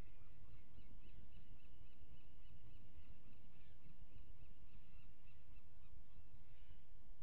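Osprey calling in a rapid series of short, high chirps, over a steady low rumble.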